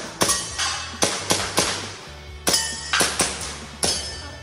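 A quick, irregular string of about ten airsoft pistol shots, several followed by the brief ringing of struck steel targets, over background music.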